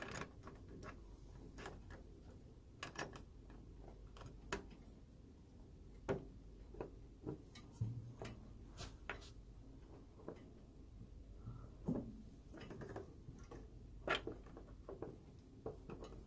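Phillips screwdriver turning a small screw by hand into a sheet-metal bracket: scattered, irregular small clicks and scrapes of the bit and screw as it is tightened.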